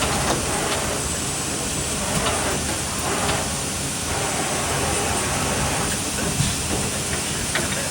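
Machine-shop running noise, most likely the Trumpf TruPunch 1000 CNC turret punch: a steady hiss with scattered light clicks and one sharper knock about six seconds in.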